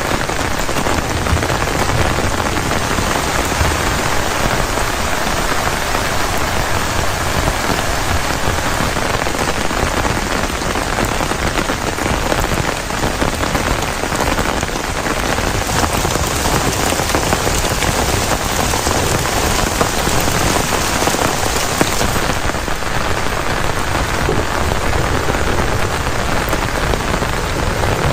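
Steady heavy rain: a dense, even rush of falling drops that keeps a constant level.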